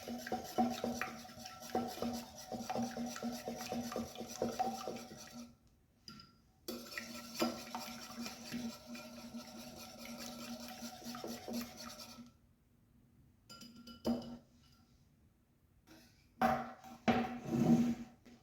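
A utensil scraping and stirring in a mixing bowl, with many small knocks, as sablé dough is mixed. It stops dead twice for a few seconds, and a few louder strokes come near the end.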